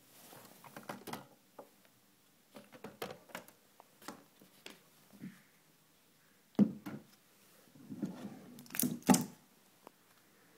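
Scattered handling noise: clicks, knocks and rustling as hands touch and move a bookshelf speaker cabinet and the camera. The loudest knock comes about six and a half seconds in, with a short cluster of knocks near nine seconds.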